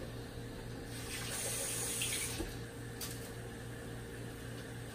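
Kitchen tap running briefly for about a second and a half, followed by a short click.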